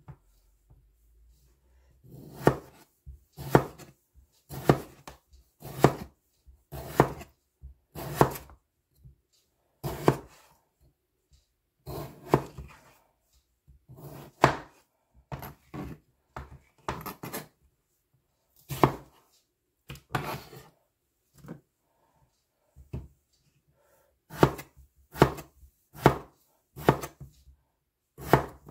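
Chef's knife slicing raw potatoes and knocking down on a plastic cutting board, in uneven runs of about one cut a second that begin about two seconds in.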